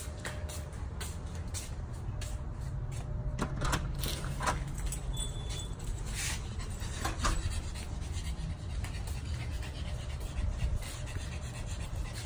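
A small shaggy dog panting in quick strokes of about two to three breaths a second, over a low rumble.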